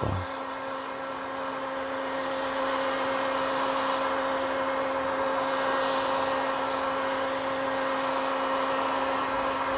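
Handheld electric heat gun (industrial hot-air dryer) blowing steadily, its fan motor giving a steady hum under the rush of air, as it dries cyanotype-sensitized paper.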